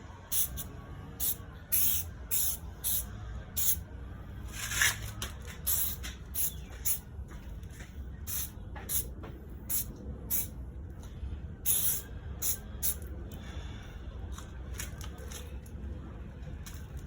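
Aerosol can of Meguiar's headlight coating spraying in many short hissing spurts, a few of them longer, as the first coat goes onto a car headlight. A low steady rumble runs underneath.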